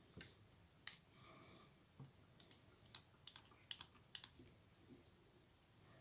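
Faint, scattered small clicks and ticks, about a dozen, bunched in the middle of an otherwise near-silent stretch, from fingers and a fly-tying tool working thread and pink flash material onto a hook held in a vise.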